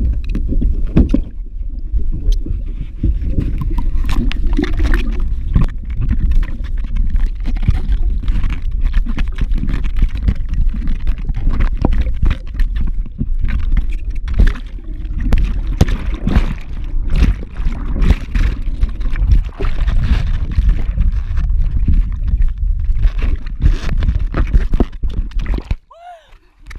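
Water balloons shifting, sloshing and knocking against a GoPro camera packed among them inside a Wubble ball: a dense run of knocks over a heavy rumble of handling noise. It drops away suddenly near the end.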